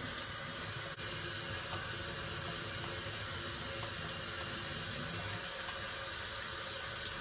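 Bathroom tap running steadily into a sink while a face mask is rinsed off with a sponge.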